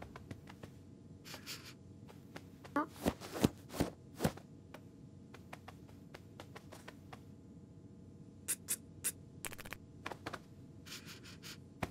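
Cartoon sound effects of a cat pawing and scratching at a sofa cushion: soft scratches, rustles and short taps. A couple of brief cat vocal noises come about three to four seconds in.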